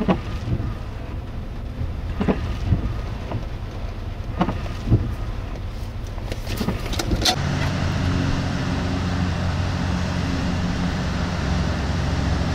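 Outdoor rush of wind and flowing floodwater with scattered sharp taps in the first half. About seven seconds in it changes to a louder, fuller rush with a low steady hum underneath.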